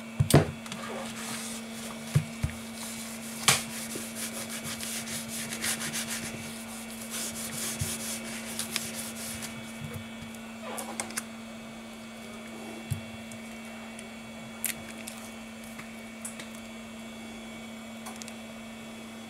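Hands pressing and rubbing a smartphone's glass back cover down onto its adhesive to seal it, with a few sharp clicks and taps as the phone is handled, the rubbing densest in the first half. A steady low hum runs underneath.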